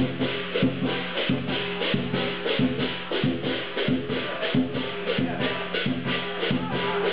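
Chinese lion dance percussion: a big drum, cymbals and gong beating a steady rhythm, deep drum strokes about every two-thirds of a second with cymbal clashes about three times a second.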